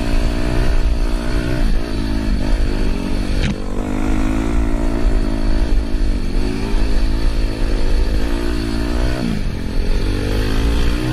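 Dirt bike engine running under the rider, revving up and easing off with the throttle so its pitch rises and falls several times. A single sharp knock comes about three and a half seconds in.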